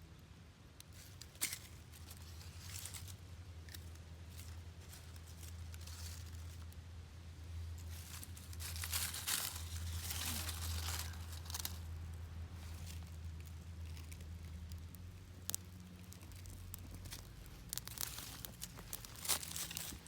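Crinkling and tearing of material handled close by: scattered rustles and sharp clicks, busiest in the middle, over a steady low hum.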